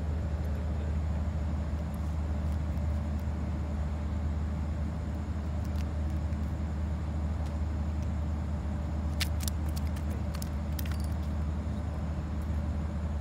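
Steady low rumble with a few faint clicks about nine and eleven seconds in.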